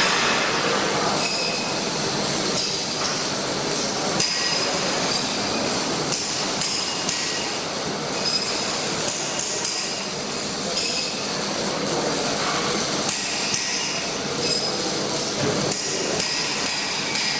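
Welding-shop noise: a steady hiss with short, high metallic rings and clinks scattered through it, as of metal being struck and handled.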